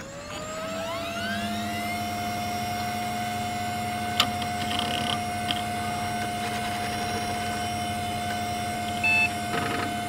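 Title-card intro sound: several tones glide upward over the first two seconds, then settle into a steady drone, with a single click about four seconds in and a short beep near the end.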